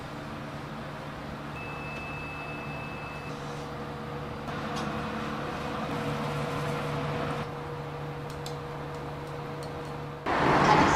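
Steady low mechanical hum with a faint, brief high whine about two seconds in. Near the end it gives way suddenly to louder, busier street noise.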